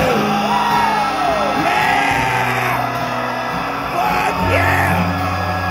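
Live band playing a slow rock song in a large concert hall, held bass notes changing every second or two, with voices singing and yelling over the music.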